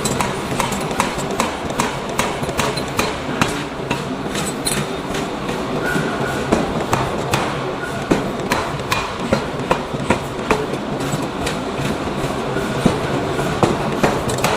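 Hammer blows on hot iron being forged, a quick irregular run of sharp strikes over a steady rumble of workshop machinery.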